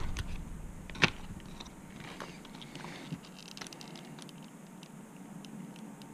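Faint clicks and rustling of hands gripping and wiggling an electric motor in the motor mount of a Traxxas TRX-4 RC truck, with one sharper click about a second in.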